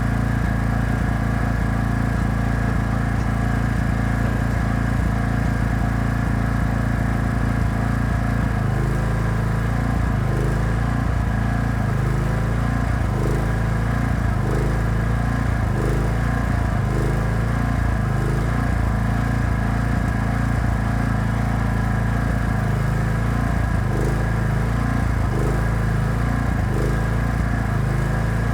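Welding generator's engine running steadily. About a third of the way in, its note starts to waver regularly, roughly once a second.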